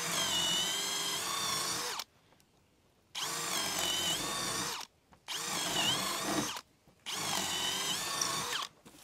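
Bosch GSB 185-LI 18 V brushless cordless drill in its fast gear, boring holes in a wooden board with an 8 mm wood bit: four short runs of about one and a half to two seconds each, the motor whine dipping briefly in pitch as the bit bites. The drill cuts the holes without strain.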